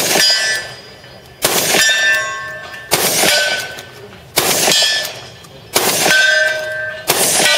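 Shotgun fired at an even pace, about one shot every second and a half, each shot followed by the ringing of a steel target being hit.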